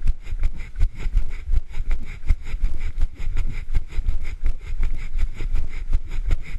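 A runner's footfalls jolting the camera they carry, a low thud about three times a second in a steady running rhythm, over a steady low rumble.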